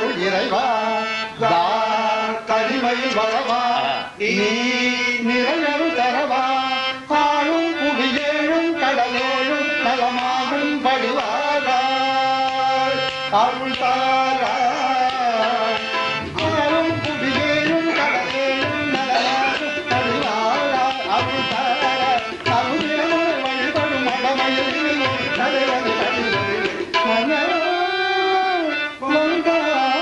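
A man singing a Carnatic melody in raga Kalyani, accompanied by harmonium and tabla.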